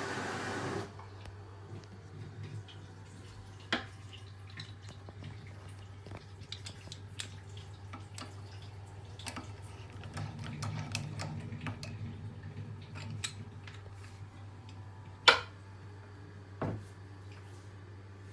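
Water running in a Panasonic Alauno toilet's hand-wash basin cuts off under a second in. Scattered drips and small clicks follow over a low steady hum. A low drone swells for a couple of seconds midway, and there is a sharp knock near the end.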